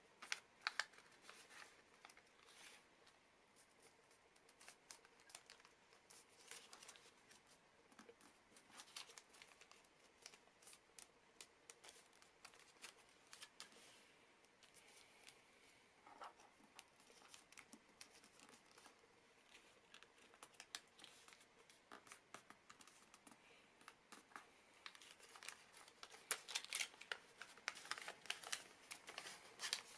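Faint crinkling and rustling of a sheet of origami paper being folded and creased by hand, with small irregular clicks as fingers press and run along the folds. The handling grows busier near the end.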